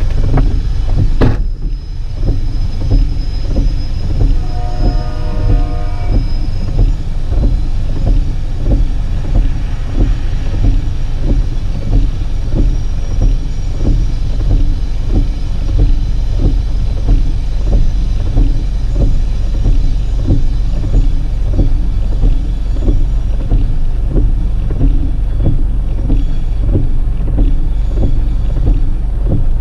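Vehicle running with a loud, deep, steady rumble and a regular pulse about twice a second, with a brief pitched sound about four seconds in.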